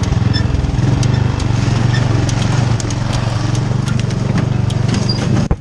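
Riding lawn mower engine running steadily close by with a fast, even pulse, towing a wagon across the forest floor, with scattered sharp clicks over it. The sound drops suddenly near the end.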